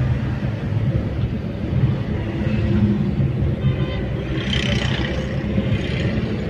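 Steady low rumble of a car's engine and tyres, heard from inside the moving car's cabin, with a brief higher rushing sound about four and a half seconds in.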